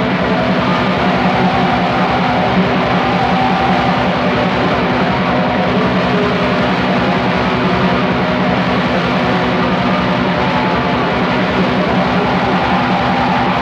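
Raw black metal: a dense, unbroken wall of distorted electric guitar and fast drumming, steady in loudness throughout.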